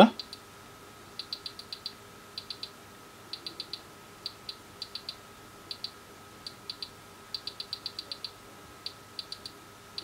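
Detent clicks of a rotary encoder knob on an Agilent E3646A bench power supply, turned in short bursts of a few clicks at a time with pauses between, as the freshly re-soldered encoder is tested.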